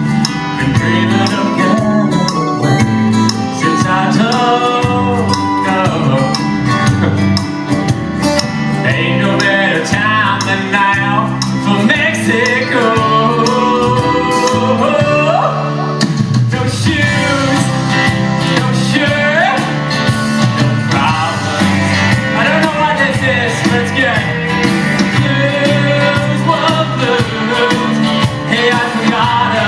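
Live band with a lead singer performing an upbeat country-rock song over a steady beat. The music breaks off suddenly about halfway through and carries on with another passage of the show.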